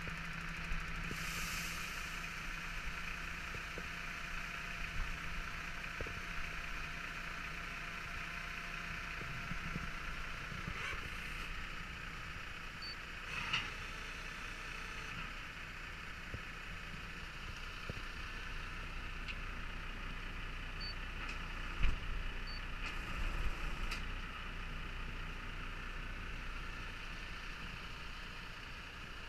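A truck's engine runs steadily while the hydraulic scissor lift table on its car-transporter body moves. There are a few sharp metallic knocks, the loudest about two-thirds of the way through.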